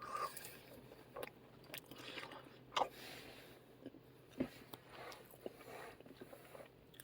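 A person chewing battered chips close to the microphone: faint mouth sounds with scattered small clicks, the sharpest about three seconds in.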